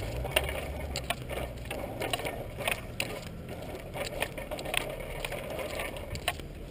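Bicycles rolling along a paved path: irregular clicking of a freewheel ratchet over a low rumble of tyres, the rumble strongest in the first second or so.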